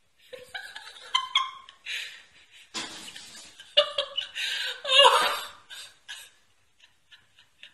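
People laughing in uneven spells, with several sharp knocks and clicks among the laughter.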